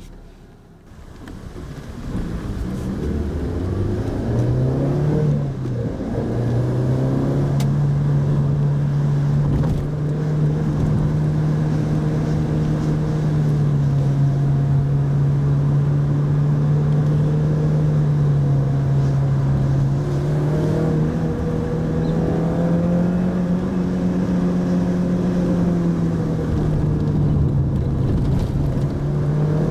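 Pajero Mini's 660 cc kei-car engine heard on board, pulling away and rising in pitch over the first few seconds. It drops once at a gear change about five seconds in, then runs steadily under light throttle, rising and easing a little later on.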